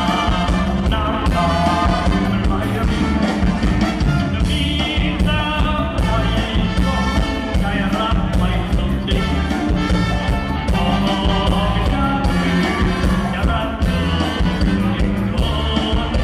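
Loud live mor lam stage-band music with a steady driving beat and a singing voice over it.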